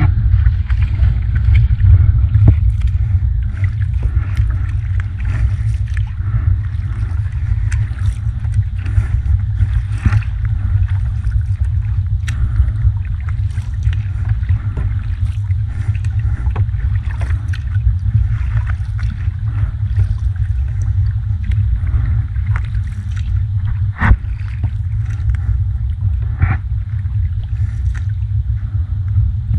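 Water lapping and splashing against a wooden dugout canoe moving across open sea, under a steady low rumble of wind on the microphone. A few sharper splashes or knocks stand out here and there.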